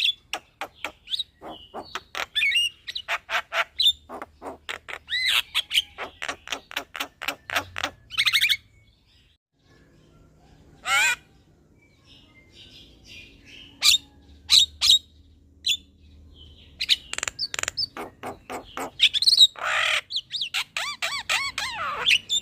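Javan myna (jalak kebo) singing a long rolling song: fast runs of sharp clicking and harsh chattering notes. It breaks off briefly about nine seconds in, gives one short grating burst, then picks up again into dense chatter toward the end.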